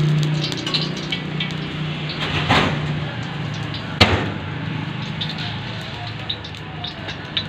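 Wok cooking at a street-food stall: a steady low hum under frying noise, with metal spatula scrapes and clicks against the wok and a sharp clang about four seconds in.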